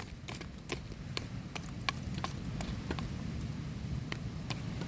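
Wood campfire crackling, with irregular sharp pops several times a second over a low rumble.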